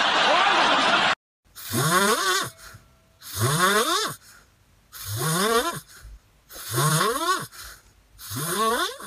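A moment of voices and noise cuts off about a second in. Then a sleeping Pomeranian puppy snores repeatedly, one snore about every second and a half, each rising in pitch.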